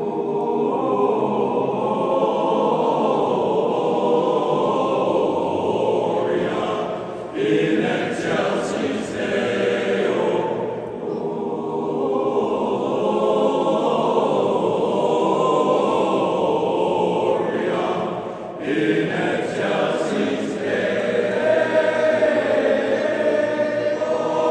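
Barbershop chorus singing sustained close-harmony chords, with short breaks between phrases about seven seconds in and again near eighteen seconds.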